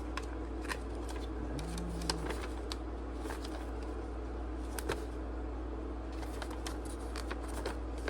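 Paper instruction manual being handled and its pages turned: scattered light rustles and small clicks over a steady low background hum.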